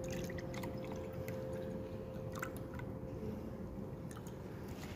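Drink poured from a glass carafe into a glass, faint liquid splashing with small scattered clicks and clinks of glass.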